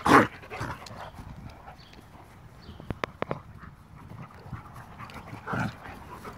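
A Goldendoodle and a Bernese Mountain Dog play-fighting: one loud open-mouthed snarl right at the start, then panting and scuffling, a few sharp clicks near the middle, and a shorter vocal outburst near the end.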